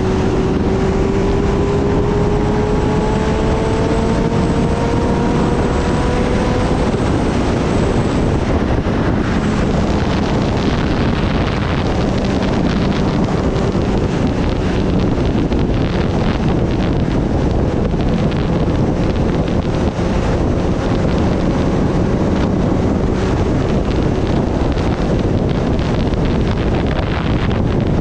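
Kawasaki Ninja ZX-10R inline-four running at highway speed under heavy wind rush over the microphone. Its engine note climbs slowly over the first several seconds as the bike accelerates, then holds steady beneath the wind.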